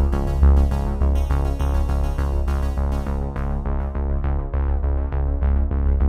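Electronic background music: synthesizer chords over a strong pulsing bass, with notes struck in a quick, steady rhythm.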